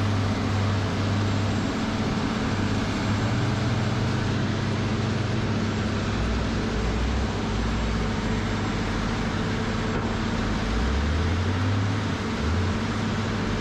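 Large horizontal wood grinder running steadily under load, its diesel engine droning as it regrinds wood chips through a baffled screen and the discharge conveyor throws the chips onto the pile.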